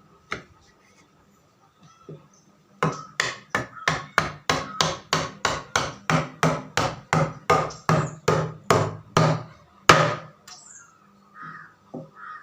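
Hammer blows on wood in a rapid, even run of about twenty strikes at roughly three a second, ending in one harder strike, with a few scattered knocks before and after.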